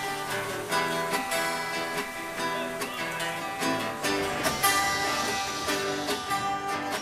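A twelve-string acoustic guitar and a nylon-string classical guitar strumming chords together, the instrumental intro of a song.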